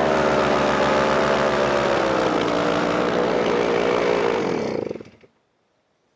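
Paramotor engine running, its pitch sagging slowly, then falling off quickly and cutting out about five seconds in as it runs out of fuel in flight.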